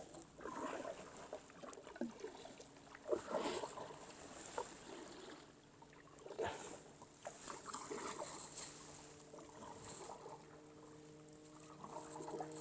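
Kayak paddle strokes dipping and splashing in the water, irregular, roughly one every second or so. A steady low drone joins in about nine seconds in.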